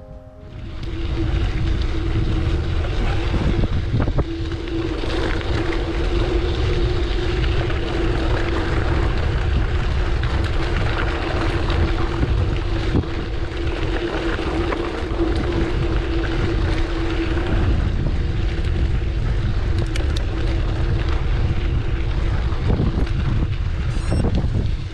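Wind buffeting a camera microphone while riding a bicycle, a steady rumbling noise with a continuous low hum running through it. The hum fades somewhat about three-quarters of the way through.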